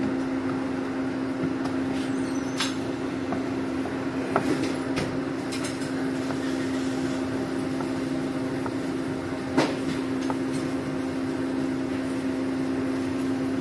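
Steady mechanical hum of kitchen equipment with one low drone, under a few scattered sharp clicks and light knocks of a chef's knife slicing salmon sashimi on a plastic cutting board.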